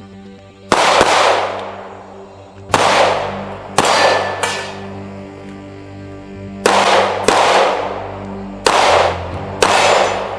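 Music: a steady held drone chord with eight sudden loud hits, each fading out over about a second, coming irregularly, some in pairs.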